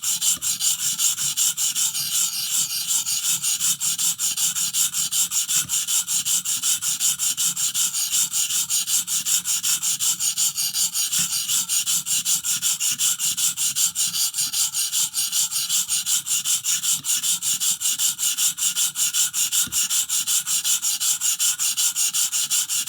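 A new 400-grit stone on a guided knife sharpener, stroked rapidly and evenly back and forth along a pocket-knife edge, giving a steady rasping hiss. The stone is regrinding the bevel to a new angle where the factory edge differed at the heel.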